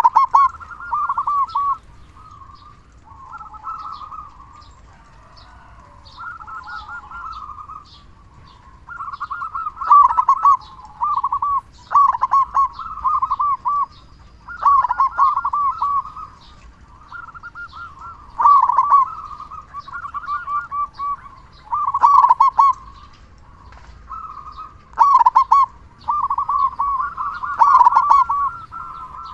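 Zebra dove (perkutut) cooing: loud rolling phrases of quick, stuttering notes, each about a second long, repeated every two to three seconds with softer cooing between them.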